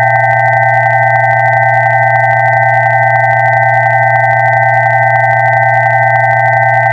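Several electronic sine tones sounding together and held without change: a low tone, a close cluster of middle tones and two higher tones, with no rhythm or breaks.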